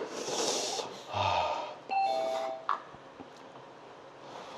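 A man blows out a long rushing breath and gives a short low groan, then an electronic door chime sounds a two-note ding-dong, the second note lower, about two seconds in.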